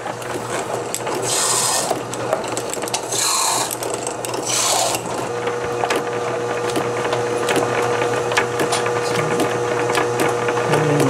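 Small bench lathe running with a steady hum while a celluloid fountain-pen barrel is worked, with three short hissing scrapes in the first half and many small clicks and taps of handling throughout.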